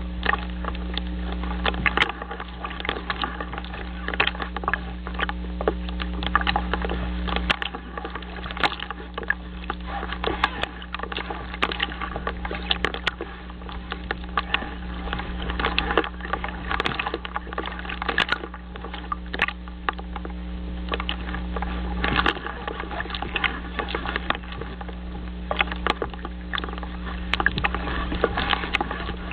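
Wind and choppy lake water picked up by a loon-nest camera's microphone: a constant rushing noise full of small crackles and pops, over a steady low hum.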